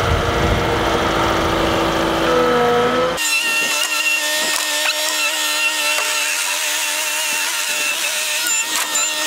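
Cat 239D compact track loader's diesel engine running, with a steady pitch that rises a little between two and three seconds in. About three seconds in, the sound changes abruptly to a thinner, steady whine with no low rumble as the loader drives off.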